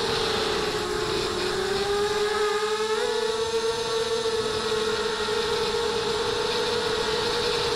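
The four rctimer 2300 kV brushless motors and 5x4 props of a ZMR250 FPV quadcopter whining steadily over a rushing hiss, heard from its onboard camera. The pitch sags in the first second, then rises about three seconds in and holds as the quad climbs.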